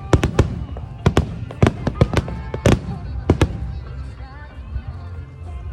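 Aerial firework shells bursting in quick succession, about a dozen sharp bangs over a low rumble in the first three and a half seconds, then the bangs stop and only the rumble remains.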